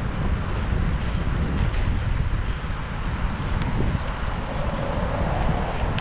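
Wind buffeting an action camera's microphone on a moving bicycle: a steady low rumbling rush with rapid flutter, and no other sound standing out.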